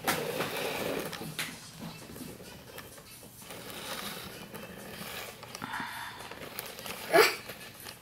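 A plastic dinosaur figure being handled against its cardboard box: soft rustling and scraping with a light knock about a second and a half in, then a short, loud rising squeak near the end.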